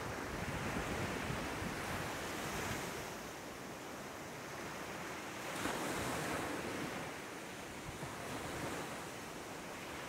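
Small sea waves breaking and washing up a sandy beach. The surf swells louder near the start and again about six seconds in, with light wind on the microphone.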